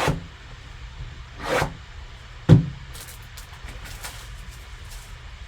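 Hands handling a trading-card box and its packaging: two brief rustles, a sharp knock about two and a half seconds in, then a run of light crinkly clicks.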